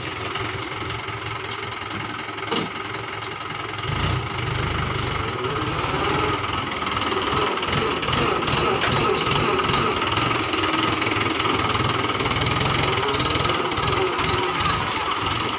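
Mahindra 575 DI tractor's four-cylinder diesel engine running as it pulls a fully loaded trolley, with a single sharp clack about two and a half seconds in.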